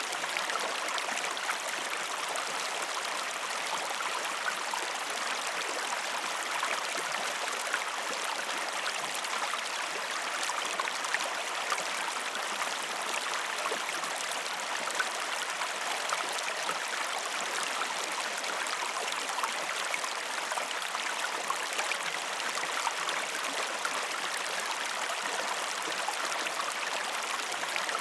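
Waterfall: water falling and splashing in a steady, even rush with small splashes throughout.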